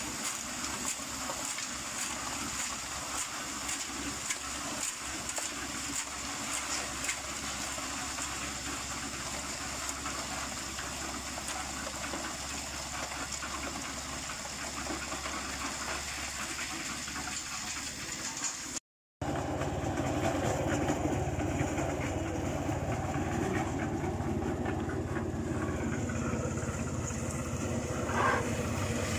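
Portable drum concrete mixer running while wet concrete pours from its tilted drum down a metal chute: a steady, noisy hiss with faint fine rattling. After a brief dropout about two-thirds through, the mixer is heard lower and louder.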